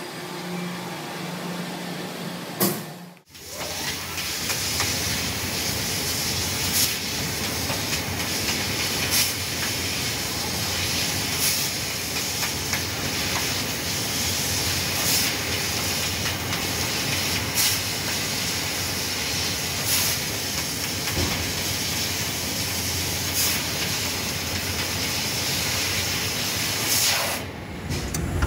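Fiber laser cutter cutting parts from a metal sheet: a steady, loud hiss of the cutting head and assist gas, with a brief louder hiss every two to three seconds. For the first three seconds there is only a steady low shop hum before the hiss starts abruptly.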